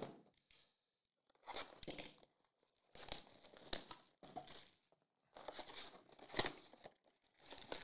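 Clear plastic shrink wrap being torn off a sealed box of baseball cards and crumpled, in several short crackling bursts with brief pauses between.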